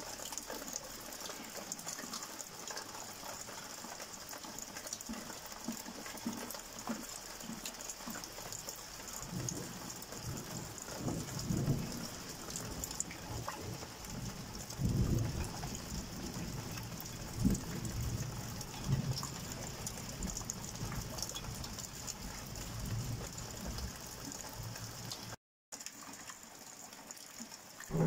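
Steady heavy rain falling, with low rolls of thunder rumbling and fading through the middle of the stretch.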